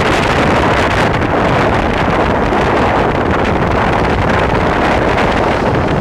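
Wind buffeting the microphone held out of a moving train carriage's window, a loud steady rush that covers the train's running noise.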